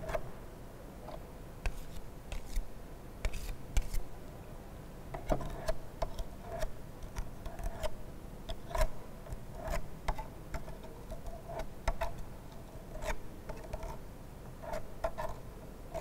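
Metal spatula scraping and tapping at the brass cup of a Casagrande liquid-limit apparatus, working soil off it. It makes irregular clicks and short metallic taps, some with a brief ring.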